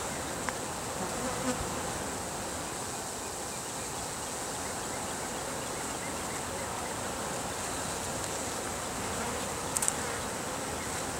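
Steady buzzing of many honeybees in flight around an opened hive; the colony is agitated by the inspection, with some angry bees flying around the beekeeper. A couple of light clicks come near the end.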